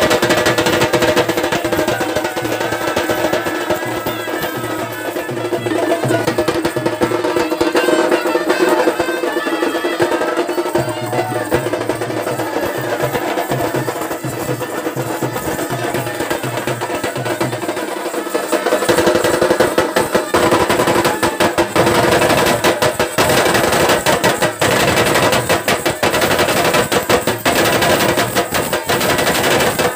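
A troupe of strap-slung drums beaten with sticks plays music over steady held tones. From about two-thirds of the way through, the drumming turns into loud, dense, rapid strokes.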